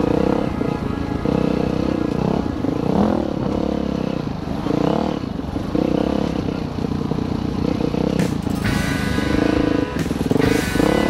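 Dirt bike engine running hard on a trail ride, its pitch rising and falling with the throttle and gear changes.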